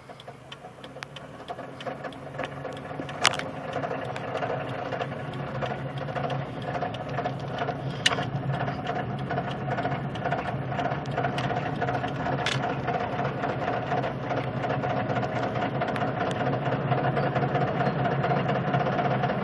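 A slowly driven vehicle running, with a rapid repeated knocking over the engine sound that grows louder over the first few seconds. Three sharper clicks stand out along the way.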